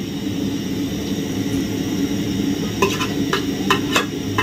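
A metal spoon knocking and scraping against an aluminium cooking pot as food is served out of it: about five sharp knocks in the second half, over a steady low hum.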